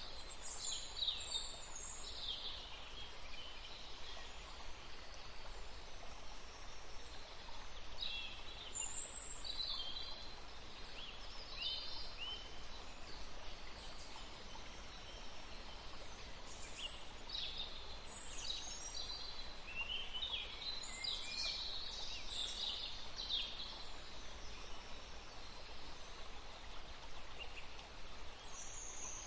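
Birds chirping and trilling in scattered clusters of short, high calls over a steady background hiss of outdoor ambience.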